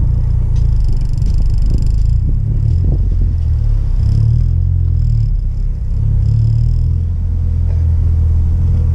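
Honda Civic EK coupe heard from inside its cabin while rolling slowly: a steady low rumble of engine and road noise, dipping briefly a little past halfway.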